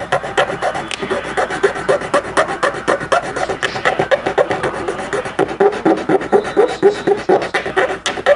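Rapid back-and-forth rasping strokes, about five a second, of a small hand file working a plastic part down so that new wheels will fit.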